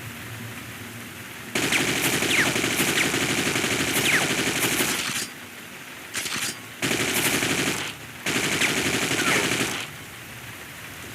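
AK-47 firing full-automatic in bursts: one long burst of nearly four seconds, a short burst, then two bursts of about a second and a second and a half.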